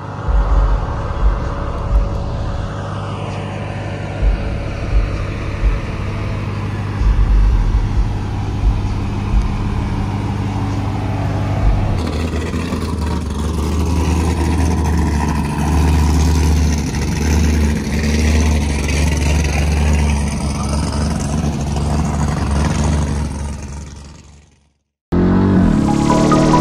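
Car engine running, with several short loud blips in the first half and revs slowly falling and rising later; it fades out near the end.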